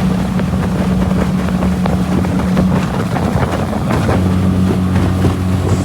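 Boat's outboard motor running steadily under way, with wind buffeting the microphone; the engine note shifts about four seconds in.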